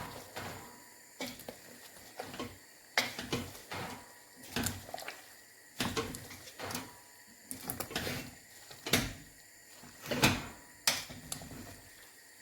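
Irregular knocks, clicks and clatter of kitchen things being handled while cooking, about a dozen separate strikes at uneven intervals.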